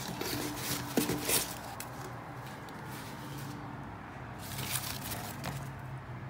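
Cardboard sheets and plastic-wrapped firework packs being handled in a cardboard box: rustling and scraping, with a couple of sharp clicks in the first second or two, then quieter shuffling.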